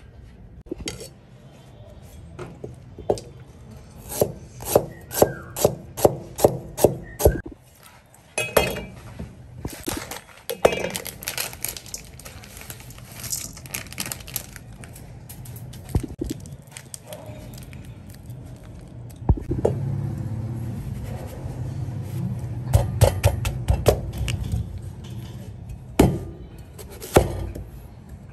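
Kitchen utensils knocking and clinking while food is prepared: a run of about eight sharp strikes, roughly two a second, then scattered clatter and scraping with another quick cluster of knocks later on.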